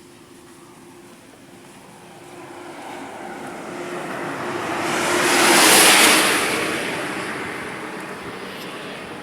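A motor vehicle passing by on the road, its tyre and engine noise swelling over several seconds to a peak about six seconds in, then fading away.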